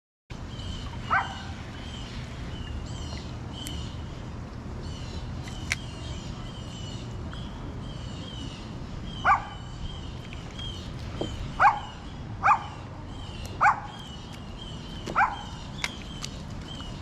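A dog barking: six single barks at uneven gaps, one about a second in and five more in the second half, over a steady high chirping in the background.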